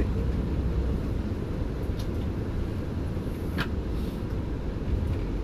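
Intercity coach bus running on the road: a steady low rumble of engine and road noise, with a faint tick about two seconds in and a sharper one a little past halfway.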